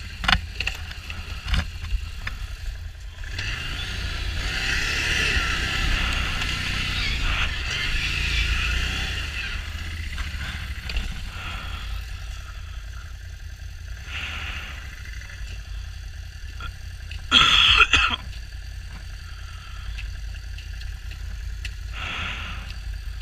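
Can-Am Renegade XMR 1000 ATV's V-twin engine running while the quad sits stuck in a mud rut. It is revved for several seconds a few seconds in, then settles to an idle. A brief loud burst comes about three quarters of the way through.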